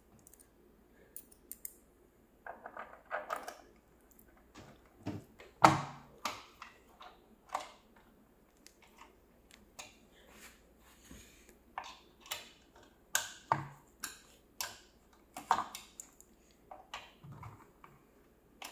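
Small machine screws and a hex key clicking, tapping and scraping against a plastic timing wheel and its metal bearing block as the screws are fitted and driven in by hand: a string of irregular sharp clicks with a short stretch of scraping.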